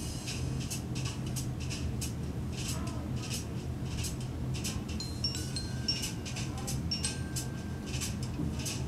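Chime-like magic sound effect played through a small speaker by the prop's Adafruit Music Maker board: rapid high tinkles about three a second, with a few short ringing tones in the second half, over a steady low hum.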